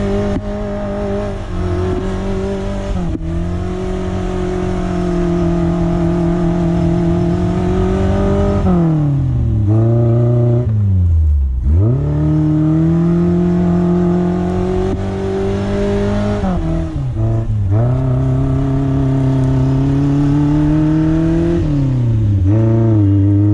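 Suzuki SJ410's small four-cylinder engine working under load at steady high revs, with the revs falling sharply and climbing back up three times as the throttle is lifted and reapplied.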